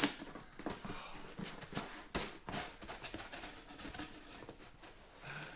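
Cardboard shipping box being opened by hand: a sharp click at the start, then a steady run of crackling, scraping and tapping as the lid flap is pried up.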